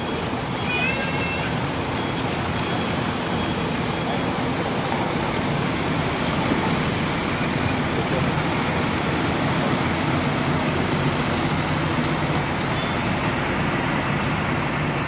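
Intercity coach's diesel engine running steadily as the bus drives slowly across the terminal lot, over constant traffic noise. A short high tone sounds about a second in.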